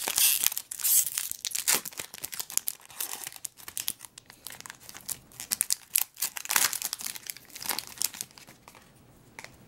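Foil trading-card pack wrapper being crinkled and torn open, in irregular crackles that thin out and stop near the end.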